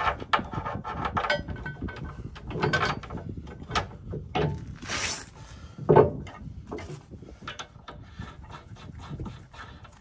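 Plow bolts being worked through the holes of a CAT 637 scraper's steel router bit and its mount: irregular metal clinks, scrapes and knocks, with a longer scrape about five seconds in and a sharp knock just after.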